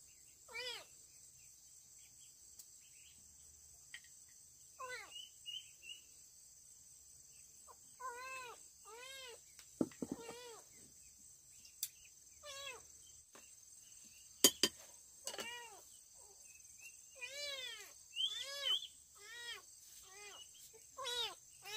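A cat meowing over and over, short calls that rise and fall in pitch, coming in bunches. Under them runs a steady high chirring of insects, with a couple of sharp clicks.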